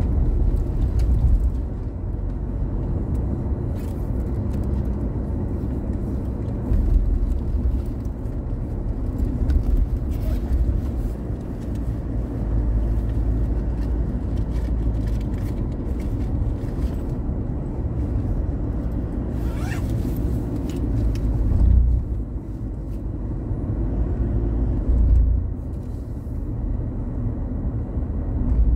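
Steady low rumble of a car's engine and tyres on a paved road, heard from inside the cabin while driving, swelling slightly twice near the end.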